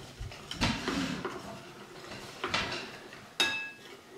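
Metal spoon stirring cornstarch and water in a ceramic bowl, scraping and tapping against the sides, with one sharper ringing clink about three and a half seconds in.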